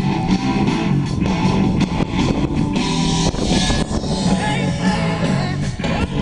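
Rock music with a singer and guitar.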